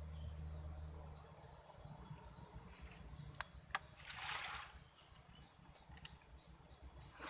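A steady, high-pitched chorus of insects with a fine pulsing texture. A couple of light clicks and a brief rustle come a little before the middle.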